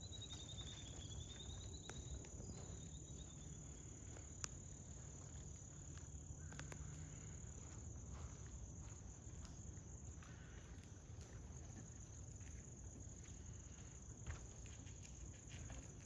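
Faint steady chorus of crickets, one high-pitched unbroken trill, over a low outdoor rumble. A bird calls with a wavering trill in the first few seconds, and there is a single sharp click about four and a half seconds in.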